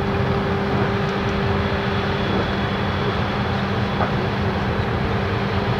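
Steady diesel engine drone of a passing river barge: a constant low hum with a rushing noise over it.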